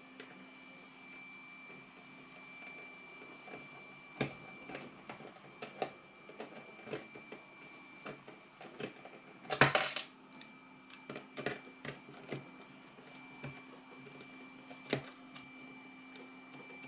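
Scattered light clicks and taps of small plastic and metal parts being handled while an Xbox 360 disc drive is worked on, with one louder brief rattling clatter a little under ten seconds in. A faint steady hum runs underneath.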